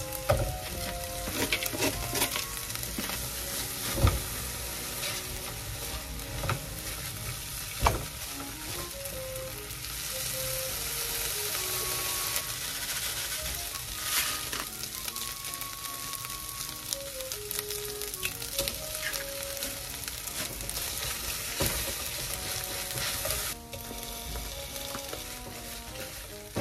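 Whitebait sizzling as it fries in oil in a pot, stirred with a plastic spatula, with two sharp knocks of the spatula against the pot. The sizzle dies down near the end.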